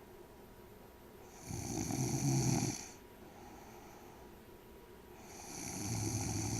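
Snoring: two long snores about four seconds apart, each lasting about a second and a half, with a faint breath between them.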